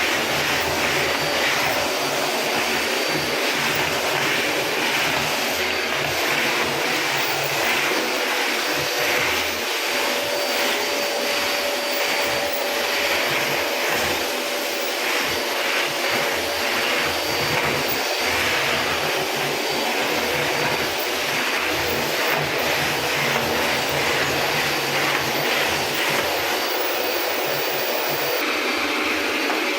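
Eureka Forbes SuperVac 1600 W bagless cyclonic vacuum cleaner running steadily: a continuous rush of air with a faint high whine.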